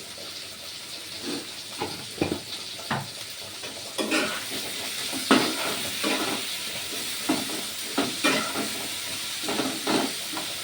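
Food sizzling in hot oil in a kadhai, with a spatula stirring and scraping the pan in repeated short strokes; the sizzle gets louder about four seconds in.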